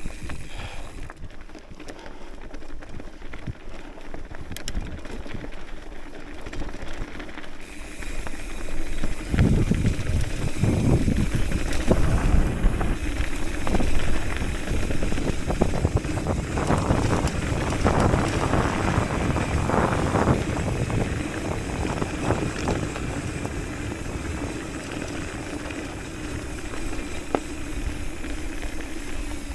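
Hardtail mountain bike rolling fast down a dirt trail: tyre noise and wind on the microphone, with the bike rattling and knocking over rough ground. It gets louder and rougher about nine seconds in, with the knocks thickest through the middle.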